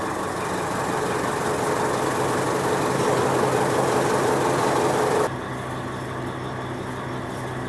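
Chaff cutter running with a steady hum while fodder is fed through and chopped, a dense rushing noise that builds and then cuts off abruptly about five seconds in. After that the machine runs on empty.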